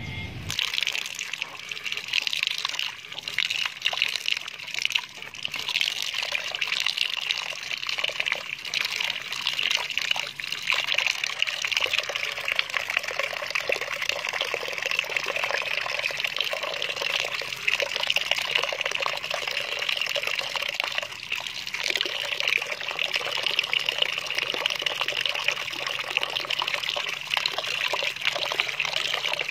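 Steady stream of water splashing into a plastic basin of water, with occasional clicks and sloshes as a hand stirs small sea snails in it.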